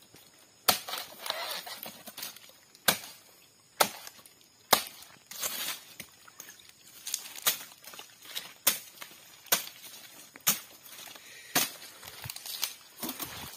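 Machete chopping at the thorny fronds and suckers at the base of a sago palm to clear it for felling: a dozen or so sharp strikes at uneven intervals of about a second.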